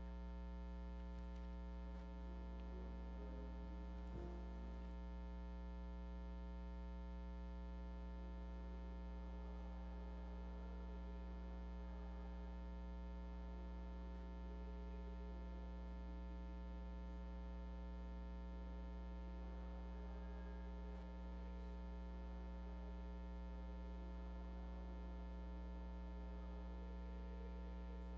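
Steady electrical mains hum: a low hum with a ladder of buzzing overtones above it, unchanging throughout and louder than anything else.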